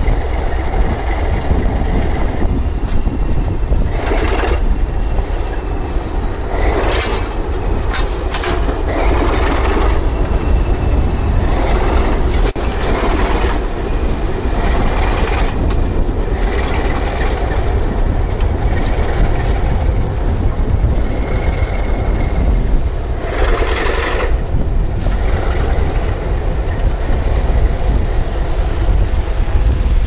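A freight train hauled by ALCO diesel locomotives rolls past with a steady, loud low rumble and clattering wheels. Short louder surges come and go, around four seconds in, again from about seven to ten seconds, and just after twenty-three seconds.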